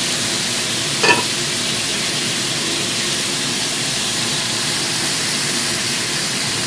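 Chicken frying in a pan with garlic and salty soy sauce, a steady sizzle. About a second in there is one brief pitched sound.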